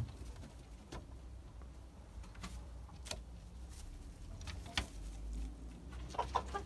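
Scattered light taps and clicks of a German Giant rabbit moving about on the wooden boards and hay of its hutch, over a low steady hum. Near the end a few short bird calls.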